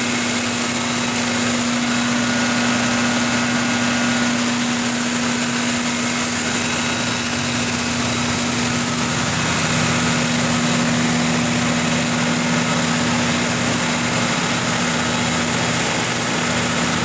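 Kohler 1000REOZDD generator set's MTU 16V2000 V16 diesel engine running at a steady speed, a constant hum with a high whine over it.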